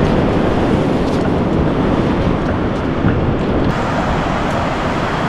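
Steady wash of beach surf mixed with wind rumbling on the microphone.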